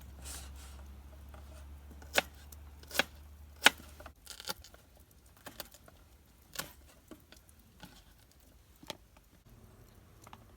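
Sharp knocks and clicks from objects being handled: three loud ones about two to four seconds in, then lighter, scattered clicks. A low steady hum cuts off about four seconds in.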